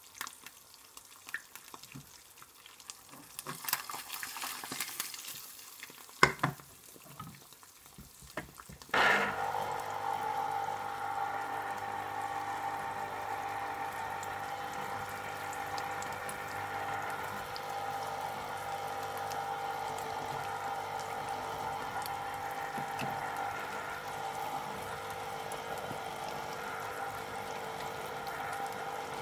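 An electric citrus juicer's motor starts about nine seconds in and runs steadily, while orange halves are pressed onto its cone. Before it starts, an egg sizzles faintly in a frying pan, with a sharp knock about six seconds in.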